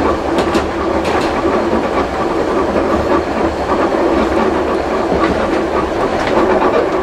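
Hankai Tramway Mo161-type tram in motion, heard from on board: the steady hum of its nose-suspended traction motors and gearing under the running noise, with short clacks of the wheels over rail joints.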